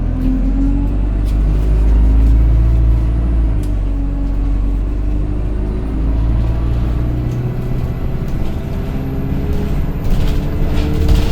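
Alexander Dennis Enviro200 single-deck bus heard from inside, its engine pulling with the pitch climbing steadily as the bus gathers speed, over a faint high whine. A short burst of hiss about ten seconds in, typical of the air system releasing.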